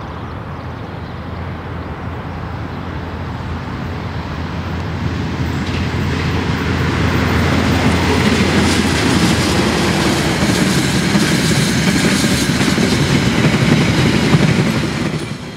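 KiwiRail DX-class diesel-electric locomotive hauling a train past at speed. Its engine hum grows louder as it approaches from about six seconds in, and the carriages then run by with the rumble of wheels on the rails. The sound cuts off suddenly at the end.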